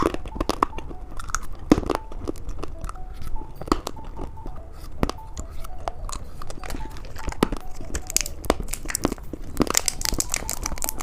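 Close-miked candy ASMR: plastic candy packaging crinkling and tearing, with many sharp crunchy clicks, and a denser burst of crinkling near the end.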